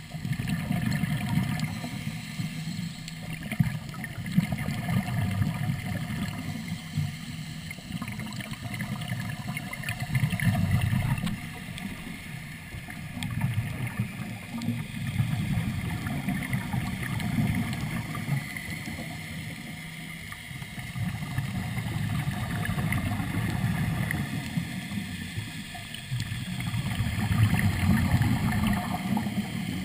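Muffled underwater rumble heard through a GoPro's waterproof housing, swelling and fading every few seconds as a diver breathes through a surface-supplied regulator and exhaled bubbles stream out.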